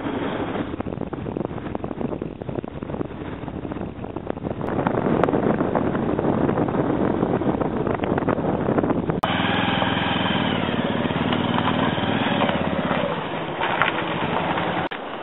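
Motorcycle engine running while being ridden, in clips cut together; about nine seconds in it changes abruptly to a steadier engine note.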